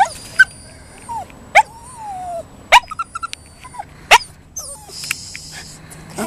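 Toy poodle giving a string of short, high-pitched yips and squeaky whines that slide up and down in pitch, a sound likened to a dolphin. It is his fearful, excited reaction to ducks.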